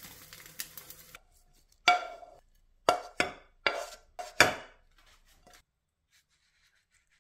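An egg frying in a pan with a light sizzle and crackle, cut off about a second in. Then a wok and spatula knock against a ceramic plate six times as fried rice is scraped out, each knock a sharp clink that rings briefly.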